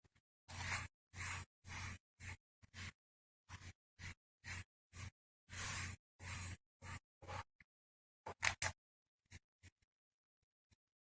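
A series of short scraping or rubbing sounds, about two a second, followed by a few sharp clicks about eight and a half seconds in and a few faint ticks near the end.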